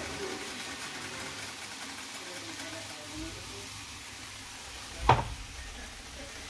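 Eggs, sliced hot dogs and bologna frying in a skillet, a steady sizzle, with a single sharp knock about five seconds in.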